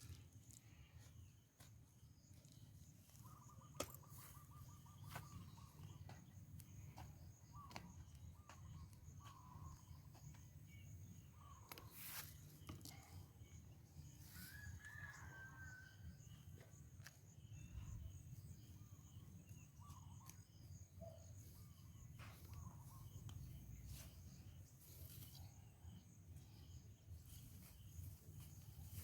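Quiet rural outdoor ambience: a low steady rumble with faint, scattered bird chirps and a few sharp clicks, the loudest about four seconds in.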